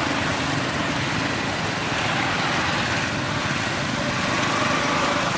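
Steady rushing outdoor noise with no distinct events.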